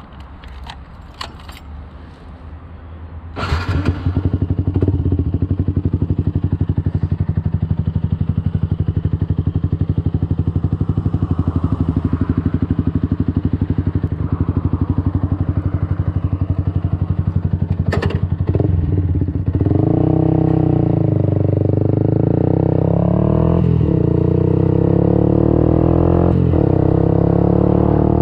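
Yamaha YZF-R 125's single-cylinder four-stroke engine, through a Radical Racing exhaust with the dB killer removed, starting about three and a half seconds in after a few clicks and idling steadily. From about two-thirds of the way through it revs, the pitch rising and falling repeatedly.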